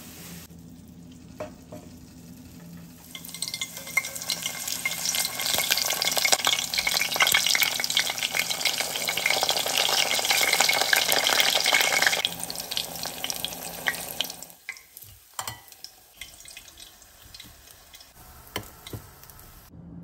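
Food sizzling and crackling in a hot frying pan. It builds up a few seconds in, stays loud for several seconds and dies away near two-thirds of the way through, leaving a few light clicks.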